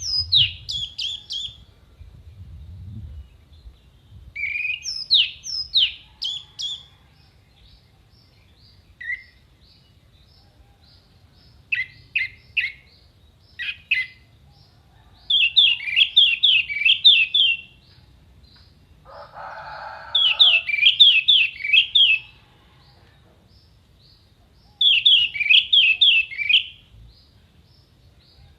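Orange-headed thrush singing in short phrases of rapid, sharp high notes fired off in quick runs, with pauses of a few seconds between phrases. Near the middle, a brief lower, harsher sound comes just before one phrase.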